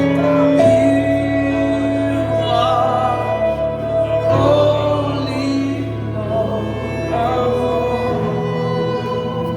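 Slow worship music: sustained chords held for several seconds, with a singing voice drawing out long, wavering notes in between.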